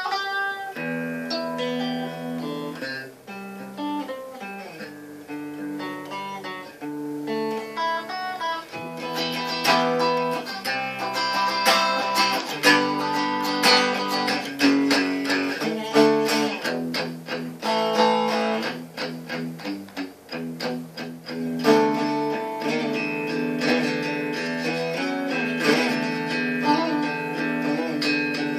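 Electric guitar being played: slow picked notes and chords at first, then busier strummed chords from about nine seconds in, with a brief lull about twenty seconds in before the strumming picks up again.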